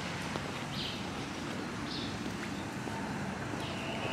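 Steady outdoor street background noise with the hum of traffic, broken by a few short, high chirps.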